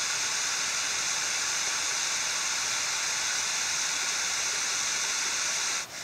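Steady, even rushing of running creek water, cutting off suddenly just before the end.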